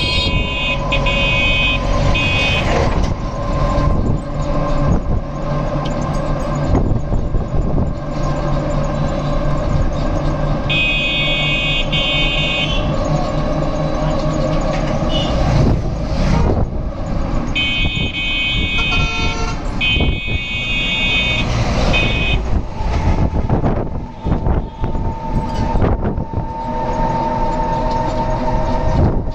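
A moving bus's engine and road noise runs throughout. Over it come repeated bursts of high-pitched horn honking: a few short beeps at the start, a run of beeps around eleven seconds in, and more beeps around eighteen to twenty-two seconds.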